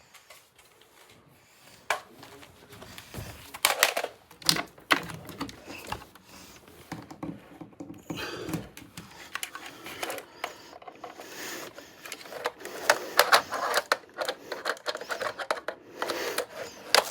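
Irregular clicking, knocking and rattling of plastic being handled as a power strip is set up and plugs are pushed in, with busy runs of clicks about a third of the way in and again near the end.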